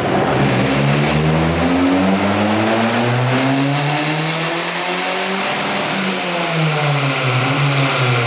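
Turbocharged Ford Focus engine making a full-throttle pull on a chassis dyno. The revs climb steadily for about five seconds, with a high whistle rising alongside. The throttle then closes and the revs fall away.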